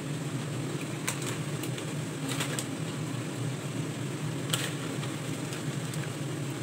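Steady low mechanical hum, with a few short crinkles and clicks scattered through it.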